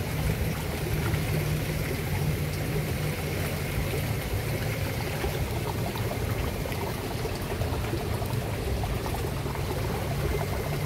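Steady running-water noise with a low, unchanging hum underneath.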